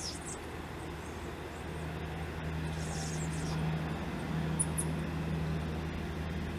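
Airbus A330-900 airliner's two Rolls-Royce Trent 7000 turbofans running with a steady low hum as the jet taxis and turns on the runway. The hum swells about two seconds in.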